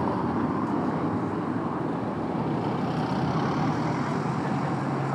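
Road traffic on a city street: a motor vehicle running close by, with a low steady hum through the second half.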